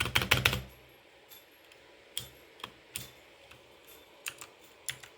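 Keys of a T-Dagger T-TGK321 keyboard being typed on: a fast run of clicking keystrokes that stops about a second in, then a handful of single key clicks a second or so apart.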